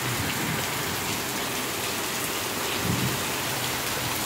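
Heavy rain pouring steadily onto wet ground and trees, a dense, even hiss.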